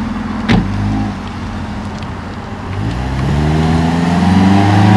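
Mitsubishi Eclipse's engine revving as the car accelerates, its pitch climbing steadily through the second half. A single sharp crack about half a second in.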